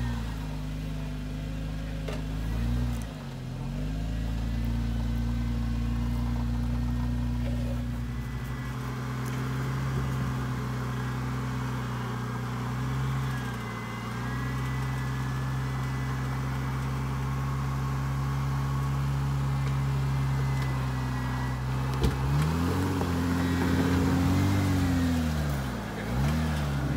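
Jeep Wrangler engine running at low revs while the Jeep crawls over rocks and ruts, the revs dropping and picking back up a few times, with a longer rise and fall in revs near the end.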